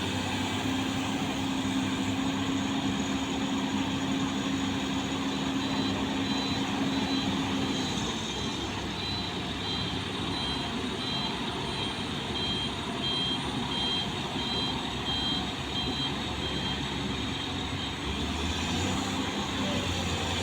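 Bulldozer's diesel engine running steadily. Its low note changes and softens about eight seconds in, then picks back up near the end.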